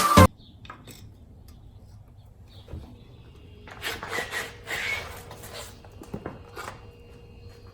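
Music cuts off just after the start. Then come faint scattered clicks and knocks, with a stretch of rustling and scraping in the middle.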